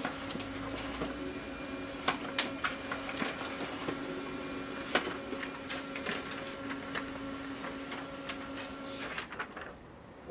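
HP LaserJet 1320 laser printer running as it prints pages: a steady mechanical hum with several sharp clicks, stopping about nine seconds in.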